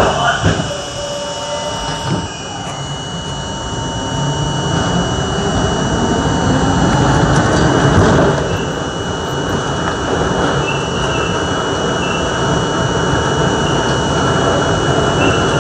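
An R42 subway train running through a tunnel and into a station, heard from on board: a loud, steady roar of wheels on rail with a thin high squeal over it. A few sharp knocks come in the first couple of seconds, and the roar grows louder towards the middle.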